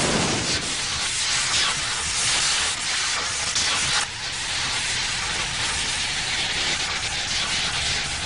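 Cartoon sound effect: a loud, steady hissing rush that starts suddenly, then changes to a duller, steadier rush about four seconds in.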